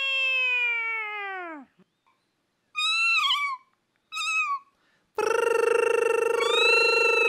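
A puppeteer voicing a cat: a long yowl that slides down in pitch as the cat puppet drops, then two short meows. About five seconds in, a steady held tone starts, with a second tone rising and falling over it near the end.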